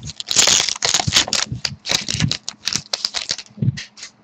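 Hockey trading cards being handled: a rapid run of crisp, papery clicks and scrapes as cards are slid and flicked over one another in the hand.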